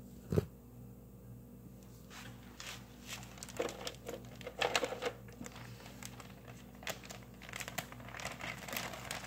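Plastic freezer bag crinkling and rustling as cleaned crabs are packed into it, with irregular crackles throughout and a sharp click just after the start.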